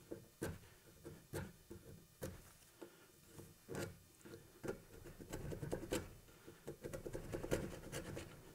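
Tang broach scraping out the drilled tang hole in a curly maple handle block, widening it to fit the tang. Irregular scratching strokes that come quicker and closer together from about halfway through.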